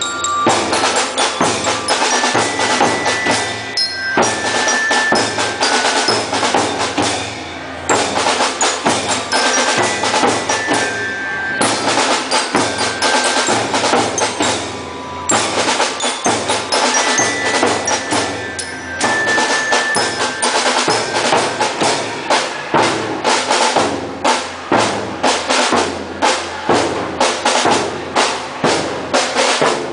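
Marching band playing, drums and percussion to the fore with bell-like mallet notes over them. In the last third the drums settle into an even beat of about two strokes a second.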